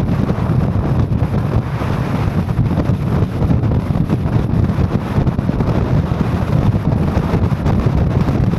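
Steady low rumble of a vehicle driving on the road, heard from inside the cabin, with wind buffeting the microphone.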